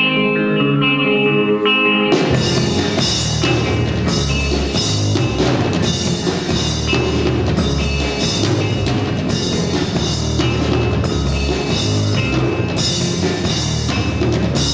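Live rock band playing an instrumental passage: a guitar picks notes alone, then drums and the full band come in about two seconds in and play on.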